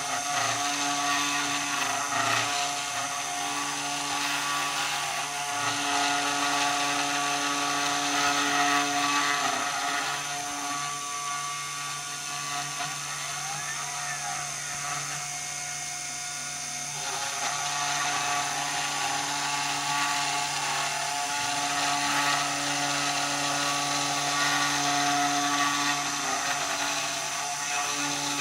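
CNC machine running, a steady motor whine made of several held tones over a hiss. It eases off for a stretch in the middle, with a few tones sliding up and down, and then comes back up.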